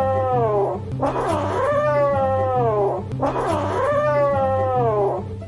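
Kitten meowing in long drawn-out calls, three in a row, each about two seconds long and sliding down in pitch at its end.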